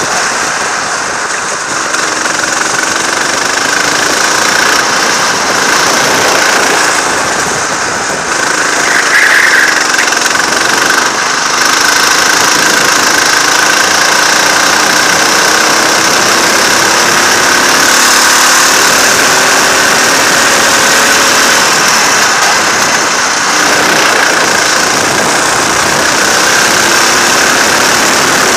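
Go-kart engine running hard while lapping, its revs rising and falling through the corners, under a heavy rush of wind on the onboard microphone.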